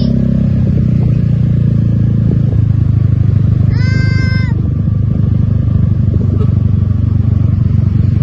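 Steady low rumble of a bus engine, with one short, high telolet horn note about four seconds in that bends up in pitch at the start and drops at the end.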